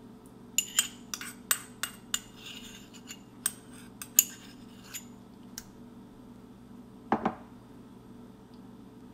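A metal spoon clinking and scraping against a small ceramic bowl as tomato paste is scooped out: a quick run of sharp clinks over the first five seconds or so, then a duller knock about seven seconds in.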